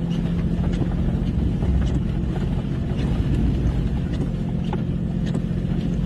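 Blizzard wind blowing hard on the microphone: a loud, steady rumbling rush with a steady low hum underneath.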